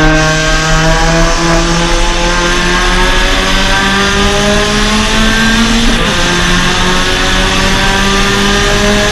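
Suzuki Swift Sport race car's 1.6-litre four-cylinder engine pulling under hard acceleration, its note climbing steadily, with a brief break about six seconds in before it carries on climbing.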